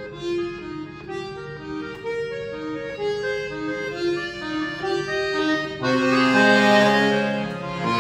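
Background music: a melody of held notes that swells into fuller, louder sustained chords about six seconds in.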